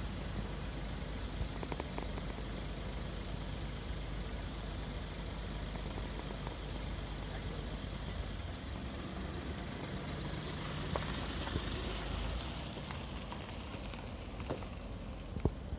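Distant rush of flood water pouring through a dam's open spillway gates: a steady, even rumble that swells slightly about two-thirds of the way through.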